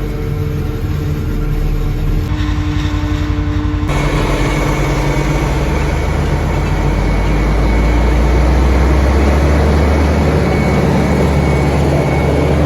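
Large diesel farm machinery engine running steadily under load. The sound changes abruptly about two and four seconds in, becoming fuller and louder for the rest.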